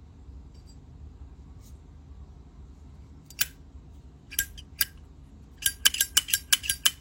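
Metal Zippo lighter lid flicked open and snapped shut, sharp metallic clicks with a ringing ping: one click, then two, then a quick run of about eight near the end.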